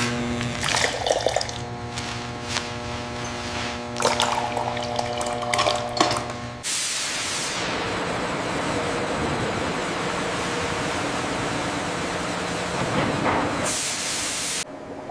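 A steady hum of several held tones with scattered clicks. About seven seconds in it switches suddenly to a steady rush of pouring, spraying liquid, which cuts off abruptly near the end.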